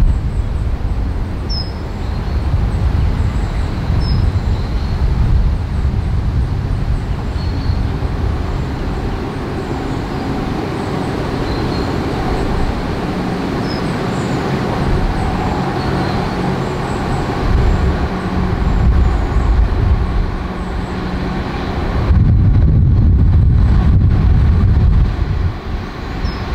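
LNER Azuma bi-mode train approaching on diesel power, its engine hum rising as it nears. Gusty wind rumbles on the microphone, heavier near the end.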